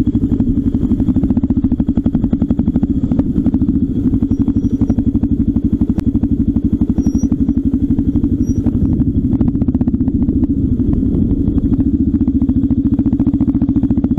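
Motorcycle engine running steadily at low speed with a fast, even pulse of firing beats.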